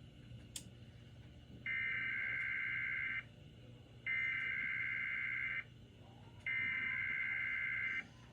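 Emergency Alert System SAME header: three bursts of high-pitched digital data tone, each about a second and a half long, about a second apart. It marks the start of an EAS message being relayed.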